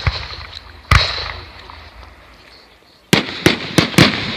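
Fireworks exploding. A bang at the start is followed by a bigger one about a second in that rumbles and echoes away; then, after a lull, four sharp cracks come in quick succession near the end.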